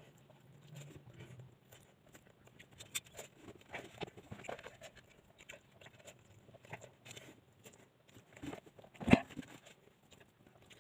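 A person eating biryani fast from a plate: scattered small clicks and scrapes against the plate and chewing, with one louder knock about nine seconds in.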